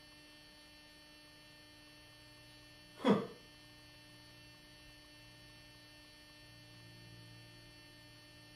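Low steady electrical mains hum, with one short sound about three seconds in that drops quickly in pitch.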